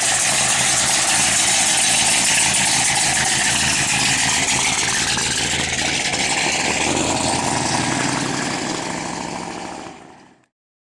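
454 cubic inch big-block Chevy V8 of a 1957 Chevrolet Bel Air, exhausting through headers and a full 4-inch exhaust, running steadily as the car drives off at low speed. The sound fades out near the end.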